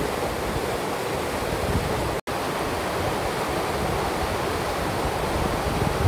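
Swift mountain stream rushing over rocks, a steady hiss of water; the river is running high and fast after heavy rain. The sound cuts out for a split second about two seconds in.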